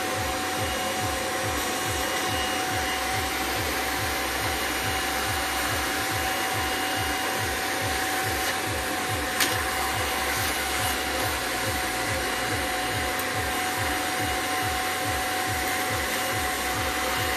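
Vacuum cleaner running steadily, its motor giving a continuous rushing noise with a steady whine, over a low pulsing about three times a second. A single sharp click about nine seconds in.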